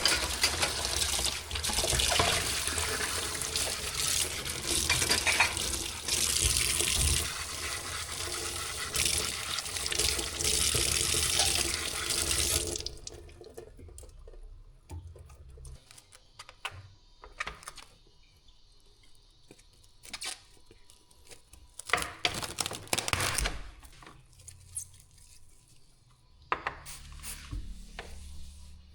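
Water running from a tap into a sink, turned off about halfway through; then a few scattered light knocks and clicks.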